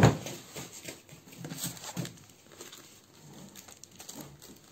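The plastic-cased Mademoiselle Toga die-cutting and embossing machine is set down on a table with one sharp thump right at the start. Faint knocks and rustling follow.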